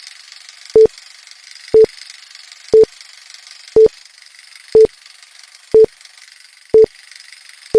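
Film-leader countdown effect: a short mid-pitched beep once a second, eight in all, over a faint steady hiss.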